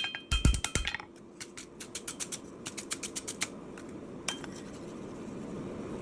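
Hammer blows on a knife blade at the anvil: a quick run of ringing metal strikes with one heavy thud, then lighter, faster taps at about five a second, and a last single strike. A steady low rush rises underneath in the second half.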